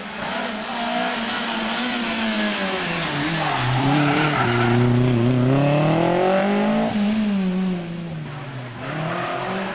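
First-generation Renault Clio rally car's four-cylinder engine, loud at close range through a tight hairpin. The revs fall about three seconds in as it brakes and turns, with some tyre noise at the slowest point. They then climb as it accelerates out, with a brief gear-change dip near the end.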